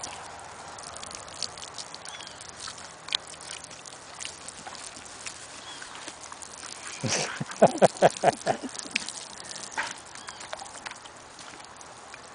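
Dogo Argentino rolling and wriggling on dry grass, with scattered rustles and light clicks. A little past the middle comes a quick run of about eight loud pulses in a second and a half.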